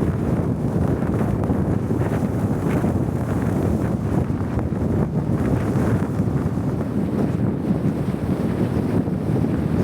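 Strong snowstorm wind blowing steadily, with wind noise on the microphone.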